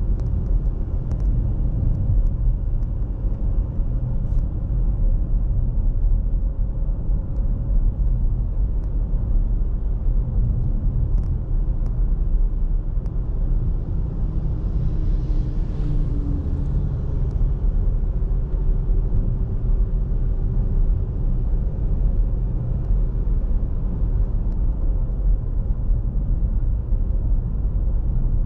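Steady low rumble of a car driving slowly, engine and tyre noise heard from inside the car. About halfway through, a brief hiss swells and fades.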